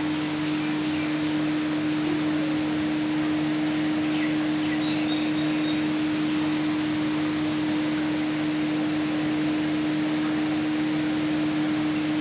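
A steady low hum under an even hiss of noise, like a running motor.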